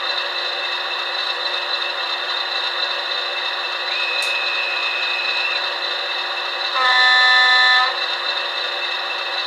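Sound-fitted model of the diesel locomotive 10001 idling through its small speaker, a steady engine drone. A thin high tone sounds for about a second and a half midway, then a loud horn blast lasts about a second near the end.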